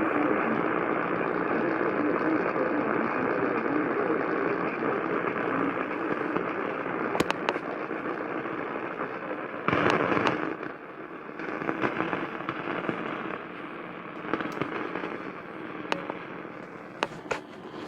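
AM radio static: a steady band-limited hiss from a receiver tuned to a distant AM station, broken by sharp crackling pops. A loud burst comes about ten seconds in and a quick cluster of pops comes near the end.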